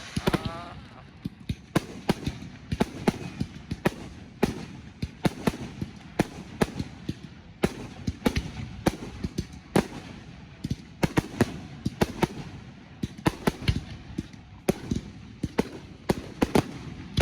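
Aerial fireworks display: a dense, irregular barrage of sharp bangs and crackles, several a second, over a continuous low rumble from the bursting shells.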